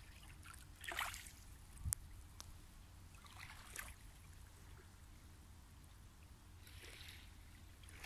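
Small waves of a calm sea lapping faintly on a pebble shore, a soft wash about every three seconds. A single sharp click about two seconds in.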